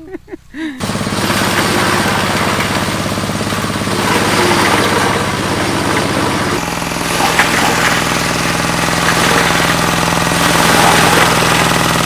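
Forage chopper driven by a single-cylinder diesel engine, running loud and steady while chopping corn stalks for silage: a hard engine clatter under a dense rushing hiss. It cuts in about a second in, and the engine note shifts a little about six and a half seconds in.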